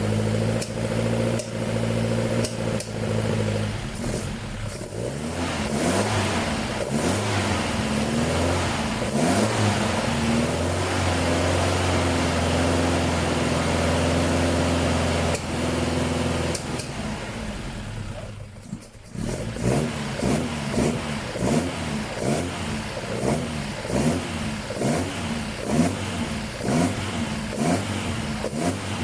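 Mitsubishi Sigma's Astron four-cylinder engine running, now firing after its firing order was redone and the distributor turned 180 degrees. It is held at varying revs, sags briefly about two-thirds of the way through, then is blipped in short revs about once a second.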